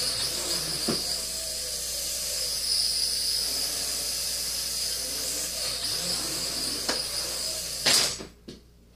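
Traxxas Alias mini quadcopter's motors and propellers whining steadily as it flies. About eight seconds in there is a sharp knock and the whine cuts off.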